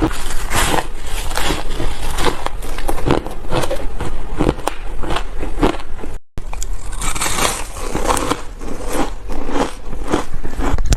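Close-miked biting and chewing of ice chunks, a quick, irregular run of crunches, broken by a momentary gap a little past six seconds in.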